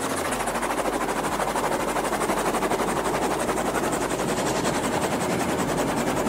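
Helicopter rotor and engine running, heard from inside the cabin as a steady, rapid chopping.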